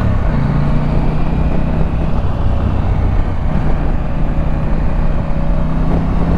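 Husqvarna Norden 901's 889 cc parallel-twin engine running at a steady cruise, its note held at one pitch.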